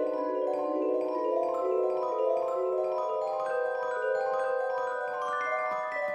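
Background music: a gentle melody of ringing mallet-percussion notes that overlap as each one is held.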